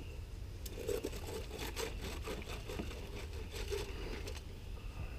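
Gravel and small rocks rattling and scraping against metal, an irregular run of clatters lasting about three and a half seconds that stops near the end. A steady low rumble runs underneath.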